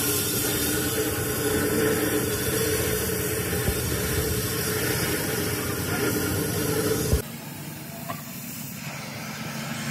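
Oxy-fuel cutting torch hissing steadily as it cuts through the steel of a truck's rear axle housing. The hiss drops abruptly to a quieter level about seven seconds in.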